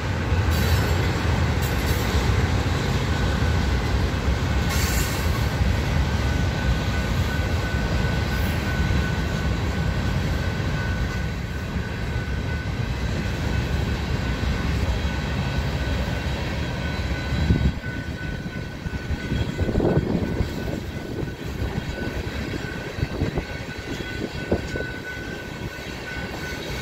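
Freight train of tank cars rolling past: steel wheels on rail give a steady rumble with a thin, steady high whine over it. About two-thirds of the way through the low rumble eases, and a few clanks and knocks from the passing cars follow.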